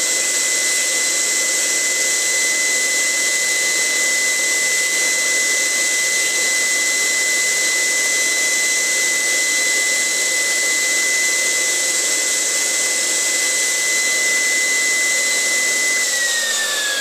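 Bench-mounted electric drill motor running steadily with a high whine while a thin wooden cage bar is drilled through a drilling guide. About a second before the end it is switched off and the whine falls in pitch as it spins down.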